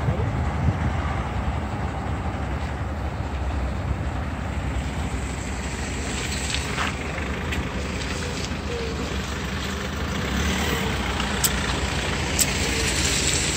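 SsangYong Rexton Sports pickup's diesel engine running as it drives a lap, a steady rumble of engine and road noise that swells slightly about ten seconds in.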